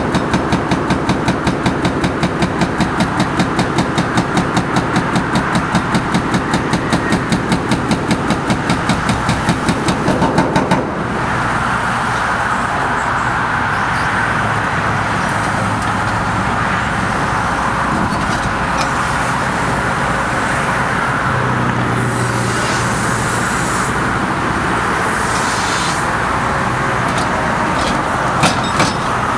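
Hydraulic breaker hammer on a Link-Belt 210XL excavator pounding concrete in rapid, even blows, about five a second, which stop abruptly about eleven seconds in. After that the excavator's engine keeps running steadily, with a few sharp knocks near the end.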